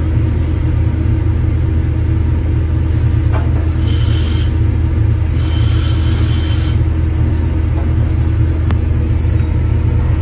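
Large engine of a heavy vehicle or machine running at a steady speed, a deep, even rumble. Two short hissing sounds come near the middle.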